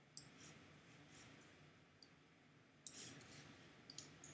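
Near silence with a few faint, sharp computer mouse clicks, a cluster of them near the end.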